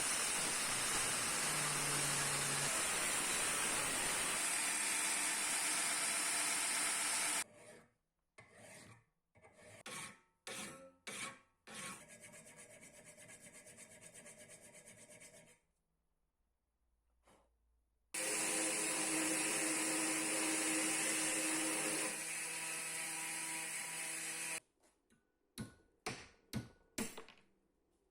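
Steel of a forged chef knife's bolster and heel being ground or cut with an abrasive power tool: two long, steady, hissing passes, with short separate touches of the steel against the abrasive between and after them.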